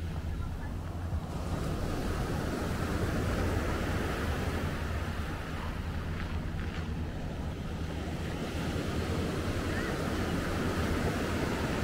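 Surf washing onto a beach in a steady wash of noise, with wind buffeting the microphone.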